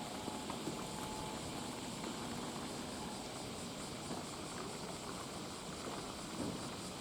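Steady outdoor ambience at a fishing harbour: an even hiss of wind and sea. A faint thin tone is heard for about the first second and a half.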